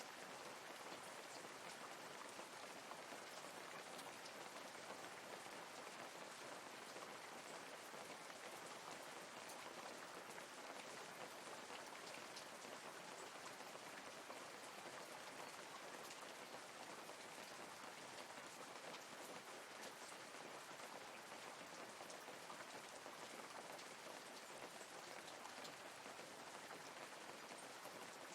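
Light rain falling steadily, a faint even hiss scattered with small drop ticks.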